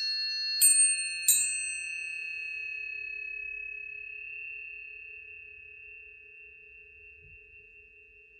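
Planetary tuning forks struck twice, about half a second and just over a second in, each strike a brief bright clang that gives way to a high pure tone ringing on and slowly fading. A fainter lower tone sounds steadily underneath.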